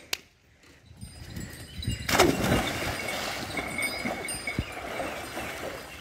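A person jumping into canal water: a sudden splash about two seconds in, followed by steady splashing and churning water.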